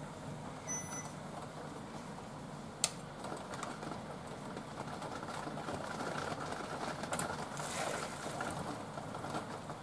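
Pasta water simmering in a small saucepan, then spaghetti and its hot water poured into a mesh strainer, water splashing and draining, loudest toward the end. A short electronic beep sounds about a second in, and a sharp click near three seconds.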